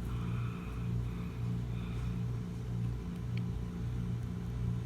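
A running engine's low steady rumble, pulsing evenly a little over twice a second, with a faint click about three and a half seconds in.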